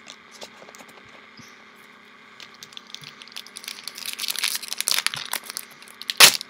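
Crinkling and rustling of a foil trading-card booster pack and cards being handled, starting about two and a half seconds in and growing busier, with one loud sharp crackle near the end.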